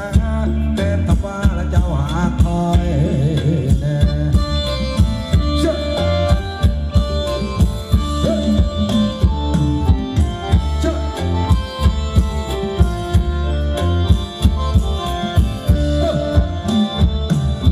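Live band playing upbeat Thai ramwong dance music over loudspeakers, with a steady, driving drum beat under sustained melody notes.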